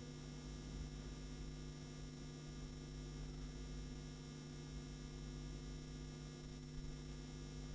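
Faint steady electrical hum and buzz, a set of unchanging tones with no other events: mains hum on the recording's audio line.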